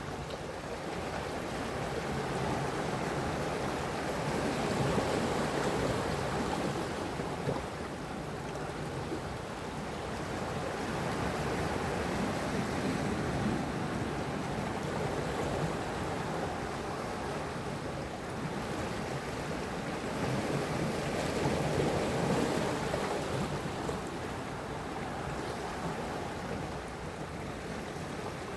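Sea waves washing onto the shore, a steady rush that swells and ebbs in slow surges about every eight or nine seconds.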